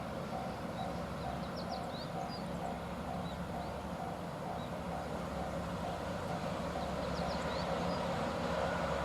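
Japanese level-crossing warning bell ringing in a fast, even repeating tone, about two strokes a second, over a low rumble that grows louder near the end. A few short bird chirps come in twice.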